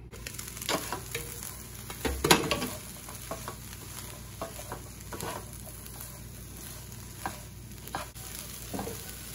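Sliced onions sizzling in a skillet over medium heat while a wooden spatula stirs and scrapes them, with a sharp knock about two seconds in.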